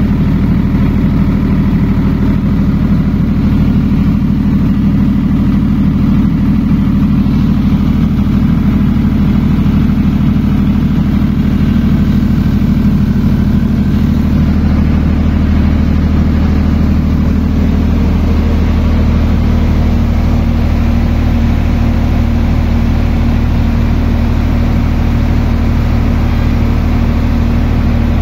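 Millat 25 kW diesel generator set running steadily, a constant loud, low engine drone.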